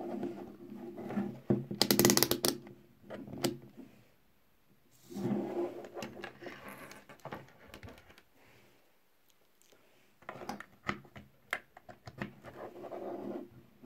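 Handling noise from a DT33A digital multimeter: a quick run of clicks as its rotary selector dial is turned through its detents, then rustling and scattered clicks as the meter is set down and a thermocouple probe's plugs are pushed into its jacks.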